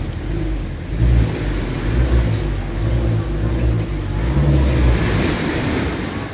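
Wind buffeting the phone's microphone in uneven gusts of low rumble, over the rush of surf.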